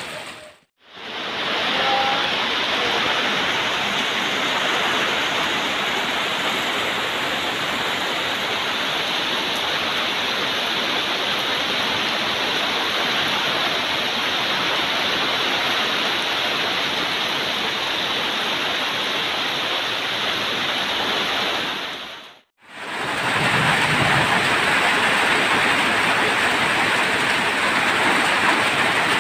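Heavy rain pouring steadily onto banana leaves and forest foliage, a dense even hiss of falling water. It drops out briefly twice, about a second in and about two-thirds of the way through, and comes back a little louder after the second break.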